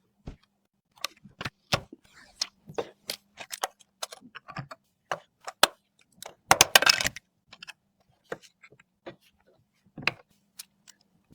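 Irregular sharp clicks and knocks of PC case and build parts being handled, with a short, denser rattling scrape about six and a half seconds in.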